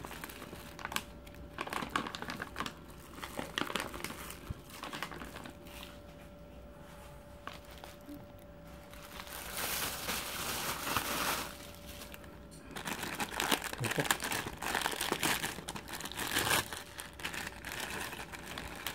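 Brown paper food wrapper crinkling and rustling in irregular bunches as it is unfolded from a takeaway portion of fried rice, then a thin plastic bag crinkling near the end as prawn crackers are taken out. A faint steady hum sits underneath for the first part.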